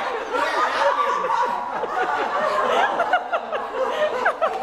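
Several people laughing hard at once, overlapping chuckles and giggles, with quick repeated bursts of laughter near the end.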